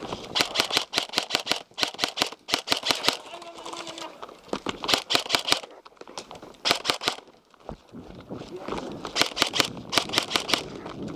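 Airsoft guns firing on full auto in five rapid bursts of sharp clicks, the longest nearly two seconds, with short gaps between them.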